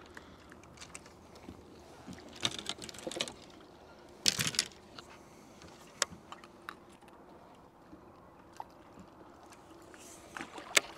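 Handling of a baitcasting rod and reel: scattered small clicks and light clatter, with a brief louder rustle about four seconds in. Near the end a short rush of noise and a sharp click come as a large swimbait is cast.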